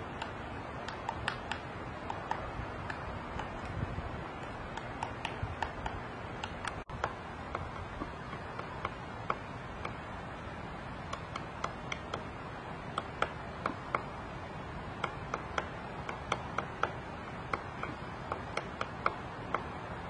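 Female pileated woodpecker excavating a tree trunk: irregular sharp knocks of its bill chiselling into the wood, sometimes several in quick succession, over a steady background hiss.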